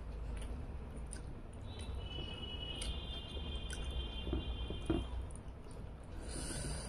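Close-up chewing and wet mouth sounds of someone eating fish and rice by hand, with small clicks and soft knocks of fingers picking at the fish on the plate.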